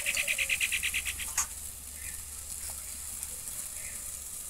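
A bird's rapid trill, about a dozen quick high notes in the first second, then a single click. Beneath it, and alone for the rest, a faint steady sizzle from taro leaves and chillies frying in an open kadai.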